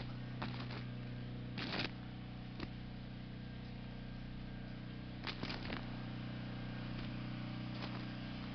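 Footsteps crunching on sleet-crusted snow, a handful of irregular steps, over a steady low hum.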